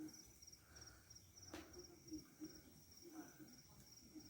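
Crickets chirping: a faint, high, steadily pulsing trill, with one sharp click about a second and a half in.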